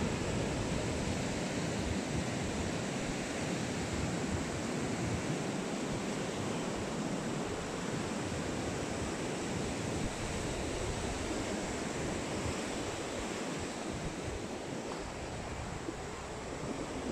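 Ocean surf breaking on the shore, a steady rush of noise, with wind buffeting the microphone.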